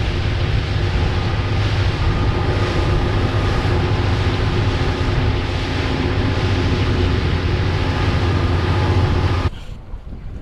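Outboard motor of a 24 ft Carolina Skiff running steadily under way, with the rush of wind and water over the hull. It cuts off suddenly near the end, leaving fainter wind and water.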